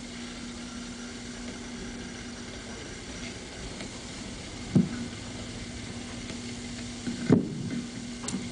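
Steady hiss with a low hum, the background noise of an old videotape played through a television speaker, broken by two short thumps, about five and seven seconds in.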